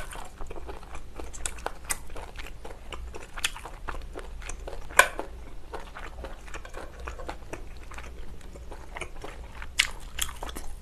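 Close-miked eating sounds: a person chewing and slurping thick Chinese glass noodles from a spicy seafood soup. Sharp wet mouth clicks run throughout, the loudest about five seconds in and again near the end.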